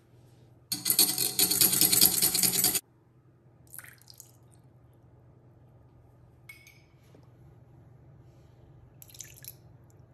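A metal wire whisk beating egg yolks in a glass bowl: a rapid metal clatter against the glass for about two seconds, then stopping. After it come a few faint short sounds of a tablespoon of liquid being tipped into the bowl.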